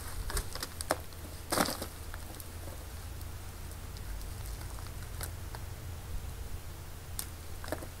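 Scattered light clicks and rustles of sweet potatoes being picked out of loose soil on a plastic tarp and handled into a plastic basket. The sharpest knock comes about a second and a half in, with a few more near the end.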